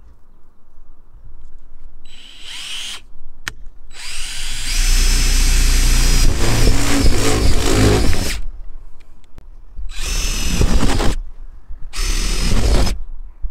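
DeWalt cordless drill boring starter holes through the van's sheet-metal roof at the corners of a cutout. It runs in four bursts: a short spin-up, then one about four seconds long (the loudest), then two shorter ones.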